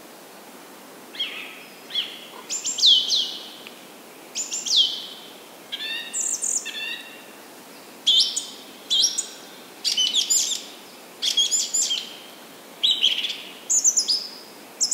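Forest birds calling: short phrases of high chirps and quick downward-sliding whistles, repeated every second or two over a steady faint hiss.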